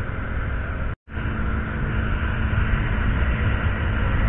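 Steady rush of wind and road noise on the microphone of a KTM Duke 200 riding at highway speed, its single-cylinder engine running underneath. The sound cuts out completely for a split second about a second in.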